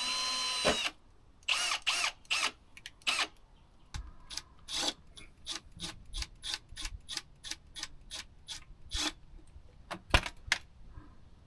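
Cordless drill whirring in a few short bursts, its pitch sliding as each burst starts, followed by a run of quick scratchy clicks and taps.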